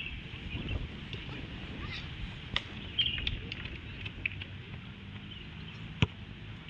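Distant shouts and calls of young footballers during a match, short high-pitched cries every second or so over a steady low wind-like rumble, with a sharp knock about six seconds in.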